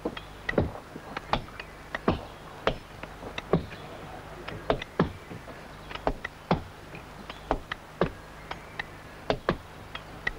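Hammers striking iron wedges driven into sandstone, sharp blows about twice a second at an uneven pace, some with a short ring. The booming ring of the blows is the sign that the stone has come loose from its bed.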